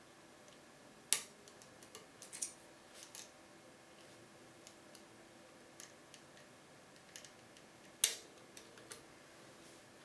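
Small metallic clicks and scrapes of lock-picking tools working in a Bricard Supersureté wafer-lock cylinder, with two sharper, louder clicks about a second in and near the end.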